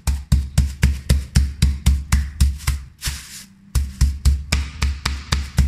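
Metal meat mallet pounding a pork tenderloin through a plastic bag on the counter, flattening the meat thinner. The blows come steadily at about four a second, with a short break a little after halfway.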